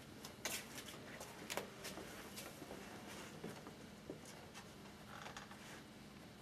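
Quiet room with a faint steady hum, broken by a scatter of light clicks and taps, the two sharpest about half a second and a second and a half in, from brushes and painting gear being handled.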